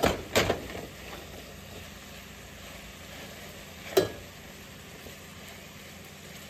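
Cubed raw beef steak sizzling in butter and onions in a skillet, a steady hiss. A wooden spatula knocks and scrapes against the pan a couple of times at the start and once about four seconds in.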